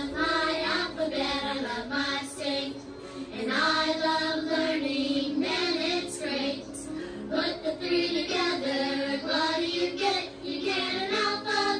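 A children's song playing: voices singing the verses over instrumental backing.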